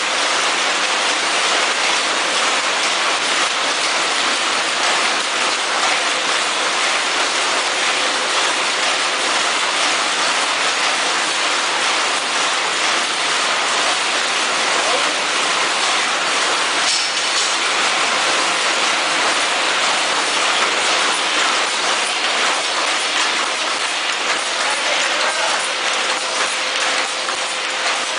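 Several vertical form-fill-seal sachet packaging machines running together: a steady mechanical clatter with a continuous hiss.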